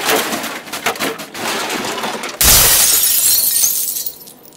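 A clatter of knocks, then a loud crash of breaking glass about two and a half seconds in, lasting over a second.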